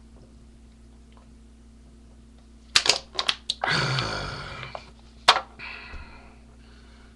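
Several sharp clicks and knocks, then about a second of rough, breathy throat noise from a man who has just drunk from a soda can, then one more sharp knock.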